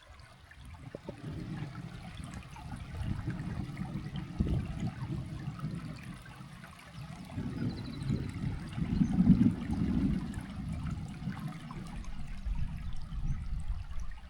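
Thunder rumbling in long low rolls after a nearby lightning strike. It builds after about a second and is loudest about two-thirds of the way through.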